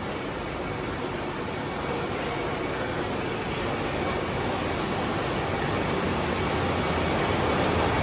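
Continuous rotary-drum carbonization furnace line running: a steady mechanical hum and rushing noise with no distinct knocks, growing a little louder toward the end.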